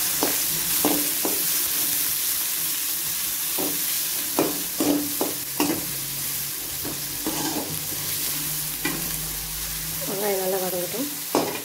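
Chopped onions sizzling in hot oil in a metal kadai, freshly added and being sautéed, with a slotted metal spatula scraping and knocking against the pan at irregular moments as they are stirred.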